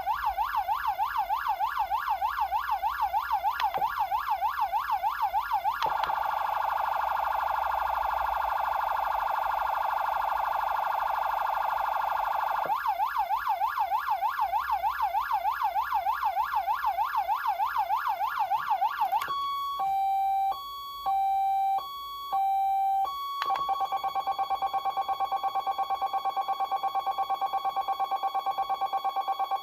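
Code 3 MICRO COM2 electronic siren amplifier cycling through its tones: a fast rising-and-falling yelp, then a much faster warble for about seven seconds, then the yelp again. About two-thirds in it switches to a two-note high-low tone with short breaks, then a steady high note pulsing rapidly.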